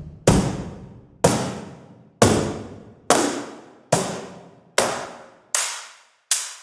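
Sampled percussion hits from the Fracture Sounds Box Factory Kontakt library, an instrument built from recorded cardboard boxes. About eight single strikes fall a little under a second apart, each ringing out and fading. The last few lose their bass and sound thinner.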